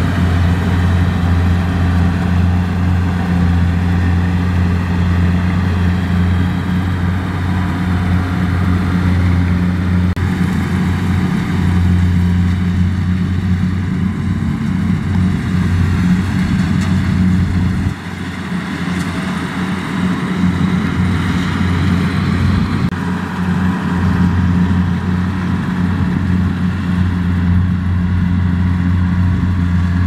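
Kubota tracked rice combine harvester running steadily while it cuts rice, a loud, deep engine drone with the clatter of the cutting and threshing gear. The level drops slightly about eighteen seconds in.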